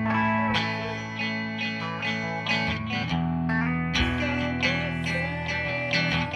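Guitar music from an amateur jam: chords struck every half second or so over held low notes that change about every second.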